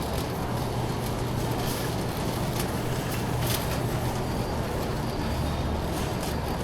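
Big-store ambience: a steady low hum with a shopping cart rolling over the floor, plus a few faint clicks.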